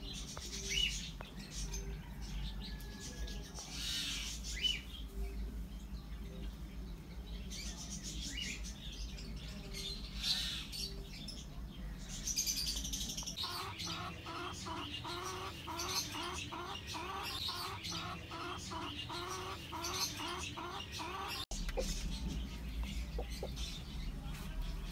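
Birds calling: scattered high chirps and short low soft notes, plausibly the broody hen clucking. About halfway in, a fast, even run of calls, some two and a half a second, goes on for about eight seconds and cuts off abruptly.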